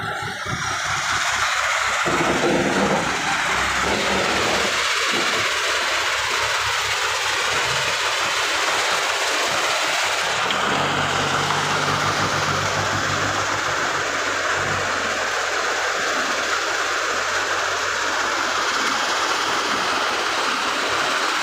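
JCB 2DX backhoe loader working its front bucket, its diesel engine running under a steady, loud mechanical clatter. The low engine drone grows stronger for a few seconds about halfway through.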